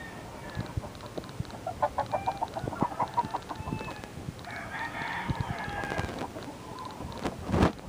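Roosters and hens in backyard pens: a chicken clucking in a quick run of notes about two seconds in, then a rooster crowing around the middle. Near the end comes one loud, short thump.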